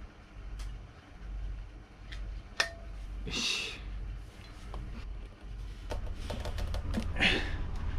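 Hands and tools working on a motorcycle wheel during tyre fitting: scattered light clicks and taps from rim protectors and metal tyre levers against the rim, with two short scraping rubs, one a little past three seconds in and one near the end, and a quick run of clicks in the last few seconds.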